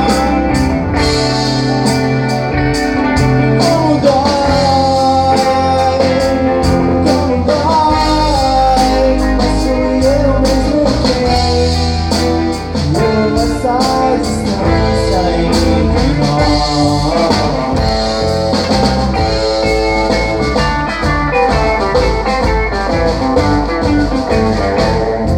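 Live rock band playing: electric guitars and drum kit, amplified through a PA, with bending lead-guitar notes in the middle of the passage.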